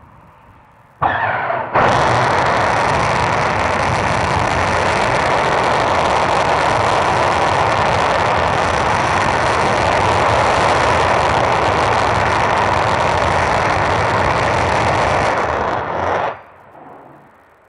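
Three Merlin 1C rocket engines of a Falcon 9 first stage firing in a static test. They ignite abruptly about a second in with a brief stutter, run as a steady, very loud rushing noise for about fourteen seconds, then cut off near the end.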